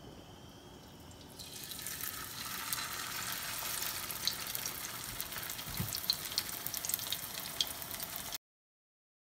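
Raw chicken chapli kabab patty sizzling as it fries in shallow hot oil in a frying pan, with scattered crackles and pops. The sizzle builds about a second and a half in, then cuts off suddenly near the end.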